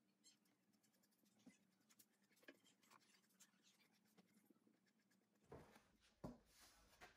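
Near silence with the faint scratching of a small brush spreading wood glue along the edges of a drawer box, then a few soft knocks near the end.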